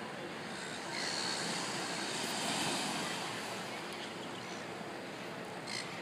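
Small waves washing onto a sandy beach as a steady hiss of water, swelling louder about a second in and easing again after about three seconds.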